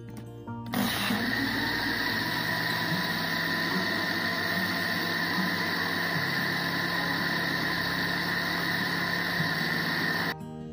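Electric countertop blender motor running steadily, blending a watery mix of mint, sugar and lemon juice. It switches on suddenly about a second in and cuts off just before the end.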